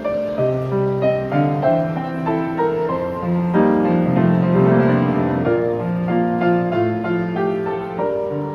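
Piano playing a gentle, flowing piece in sustained chords, growing fuller and louder around the middle.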